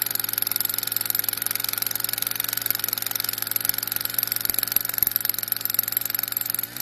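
Small engine of a hand-held portable drilling rig running steadily at throttle while boring into the soil. Its pitch drops right at the end as it is shut off.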